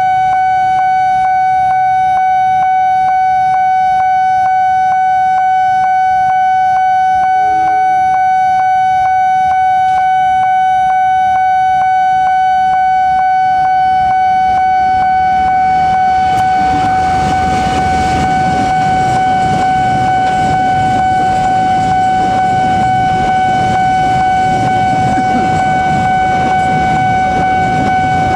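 Level-crossing warning alarm sounding a steady, high-pitched electronic tone with a faint regular pulse. From about 16 seconds in, the rumble of a train comes up under it and grows as the train passes the crossing.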